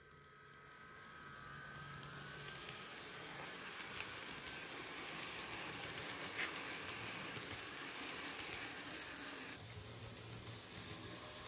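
Model passenger train running along its track close by: the steady whir of the small motor and wheels rolling on the rails, with a few light clicks. It grows louder over the first two seconds as the train nears, then drops to a quieter rumble near the end.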